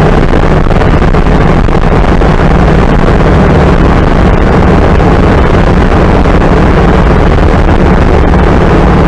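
1930 Ford Model A's four-cylinder engine running steadily at road speed, heard from inside the cab with road and wind noise mixed in. The engine is running on a newly fitted FSI distributor.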